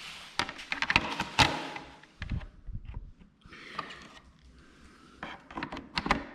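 Small motorcycle parts being handled: a run of sharp clicks and knocks in the first second and a half, a duller thump, then another cluster of clicks near the end.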